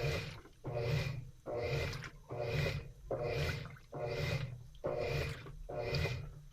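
Washing machine working through a wash cycle, the motor driving the load back and forth through the water. It makes a rhythmic swish over a low hum, about three strokes every two seconds.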